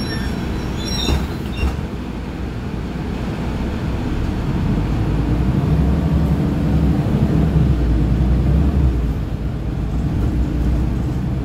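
Cabin sound of a Mercedes-Benz Citaro O530G articulated bus's diesel engine, idling with a low drone and then pulling away, the drone building and getting louder over several seconds before easing slightly about nine seconds in. A couple of sharp knocks sound about a second in.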